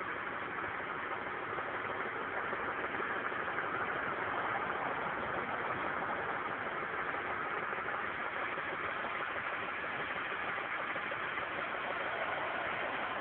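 BMW E36 320i's straight-six engine idling steadily, with a rattle coming from the engine bay.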